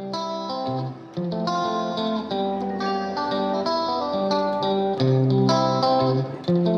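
Background music: a bright tune of sharply plucked notes over a bass line, at a steady pace.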